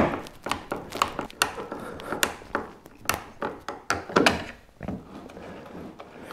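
Pliers' metal jaws clicking and tapping irregularly on a stainless steel nut and bolt as the nut is turned and the pliers re-grip, tightening the bolt that sets a kayak rudder's swing tension. The sharpest tap comes right at the start, and the tapping eases off near the end.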